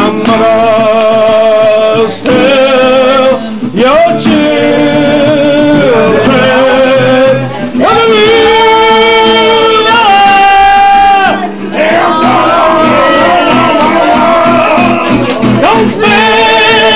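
Men singing a song in a loud sing-song, long held notes with vibrato and short breaks between lines.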